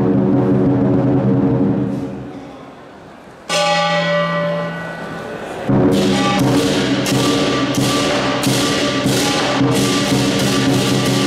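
Southern lion dance percussion band: big lion drum, gong and cymbals playing. The ringing dies down around two seconds in and a single ringing strike sounds about a second later. Near six seconds the full ensemble comes back loud, with cymbal crashes about twice a second.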